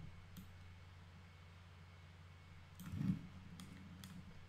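A few sharp computer mouse clicks, spaced apart, over a steady low hum, with one short, louder low sound about three seconds in.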